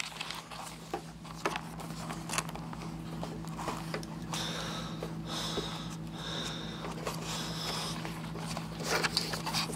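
Scattered clicks and rustling from a person handling the camera and keyboard, over a steady electrical hum. No music is playing.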